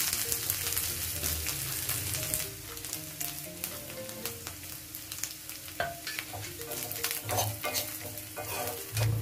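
Coconut pieces frying in ghee in a kadai with a steady sizzle. In the second half, a spoon stirring the pieces clicks and scrapes against the pan.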